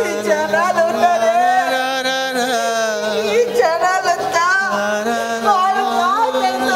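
Song with accompaniment: a singing voice carries a wavering, ornamented melody over a steady held low drone note.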